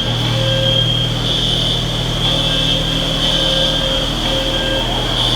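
Shopping-mall fire alarm sounding: a loud, continuous high-pitched electronic tone with a steady low hum beneath it.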